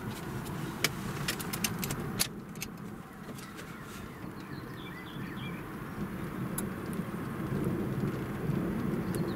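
Steady low car rumble, with a run of sharp ticks in the first few seconds and a few faint high bird chirps about halfway through.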